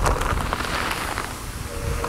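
Granular fertilizer pouring from a plastic sack onto a heap, a steady hiss that thins out toward the end, with wind rumbling on the microphone.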